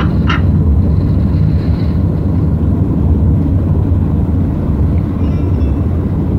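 Steady low rumble of a car driving along a highway, with tyre, road and engine noise heard from inside the cabin. Faint steady tones come in near the end.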